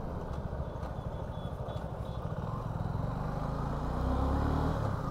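Suzuki V-Strom 250 motorcycle's parallel-twin engine running as the bike rides along, its note steady at first and growing louder about four seconds in.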